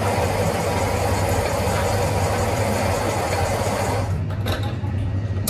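Electric coffee grinder running for about four seconds, starting and stopping abruptly, over a steady low hum.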